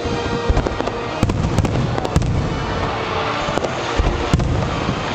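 Fireworks display: a continuous run of crackling bursts, with sharp bangs scattered throughout.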